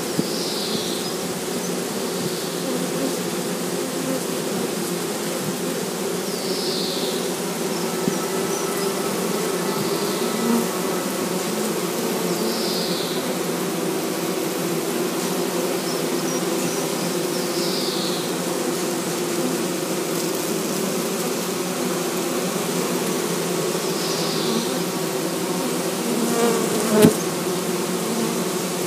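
Honeybee colony buzzing steadily around the hive, a dense hum of many bees in flight. A short high chirp repeats about every six seconds, and a single sharp tap comes near the end.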